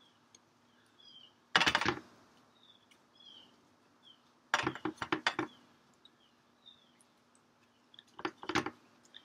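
A paintbrush rattled against a hard container in three short bursts of rapid clinking. Small birds chirp faintly in the background.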